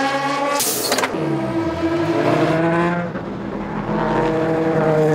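Racing car engines at speed. A car passes close with a rush of noise and its engine note falling. Then an engine note climbs through the gears, with a shift about three seconds in and a second climb after it.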